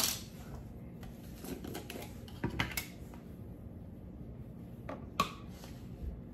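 Light clicks and knocks of bottles and a glass jar of minced garlic being handled on a kitchen counter, with a few clicks about two and a half seconds in and a sharper single click a little after five seconds.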